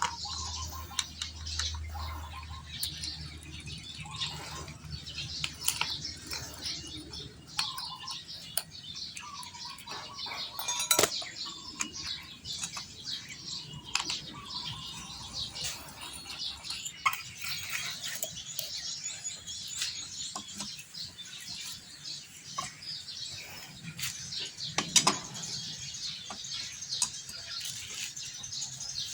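Birds chirping continuously in the background, with scattered clicks and knocks from small metal engine parts and tools being handled; the sharpest knocks come about 11 and 25 seconds in. A low hum fades out over the first several seconds.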